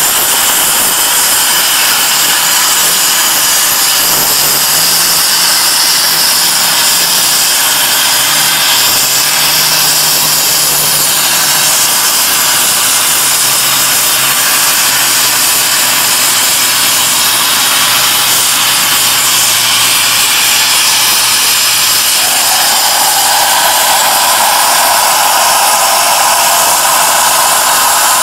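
High-power CNC plasma torch cutting 25 mm carbon steel: a loud, steady hiss of the plasma arc and gas jet. A higher tone joins in about three quarters of the way through.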